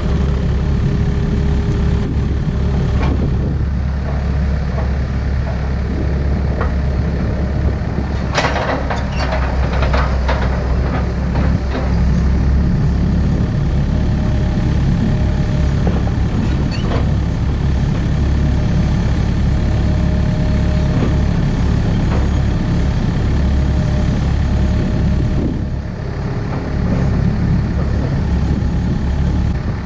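Takeuchi excavator's diesel engine running steadily, with a cluster of metallic clanks and rattles about eight to eleven seconds in and a few single knocks later.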